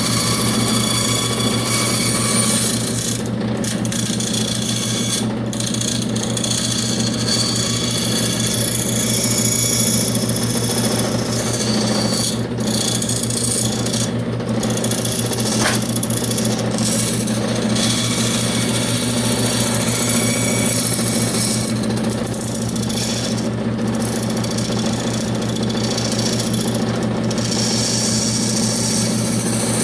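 Electric saw running steadily as it cuts through wood, with a constant motor hum and a rasping cutting noise that varies as the blade works along the cut.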